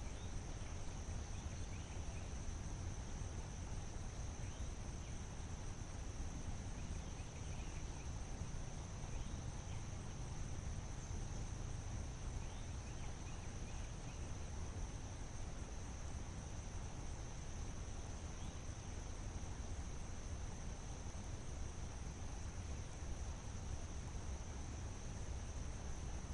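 Steady high-pitched drone of insects in summer vegetation, with a low rumble underneath and a few faint, brief chirps now and then.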